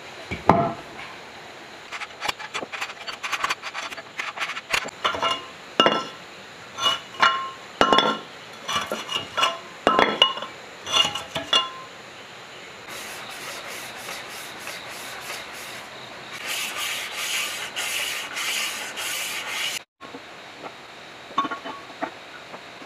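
Metal work on a bare cast-iron engine block: a run of sharp, ringing metallic clinks and knocks, then a few seconds of rhythmic scratchy rubbing strokes on the block. Near the end come a few light clinks as steel cylinder liners are set into the bores.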